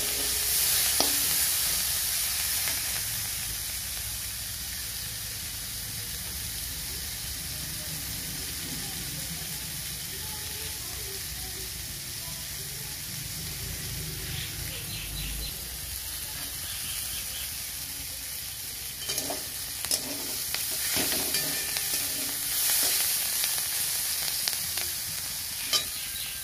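Chopped onion stalks frying in mustard oil in a metal kadai over a low gas flame: a steady sizzle. Over the second half, a spatula scrapes and stirs them around the pan.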